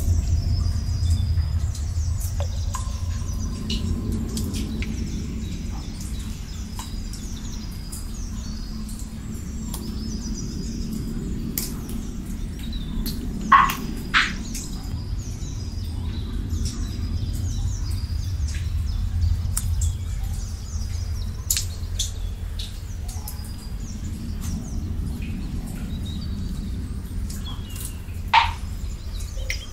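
Nature ambience: small birds chirping continually over a low steady rumble, with two louder water-drop plinks, one about halfway through and one near the end.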